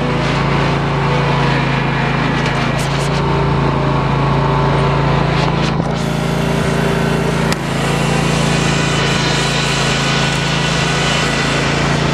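Riding lawn tractor's small engine running steadily, close up from the seat, with a few brief knocks over its hum.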